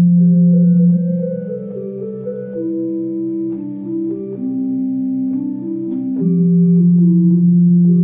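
Electronic keyboard playing in an organ-like voice: a low note held throughout, under a slow melody of long sustained notes that steps downward and then climbs back up. The music is softer in the middle and swells again near the end.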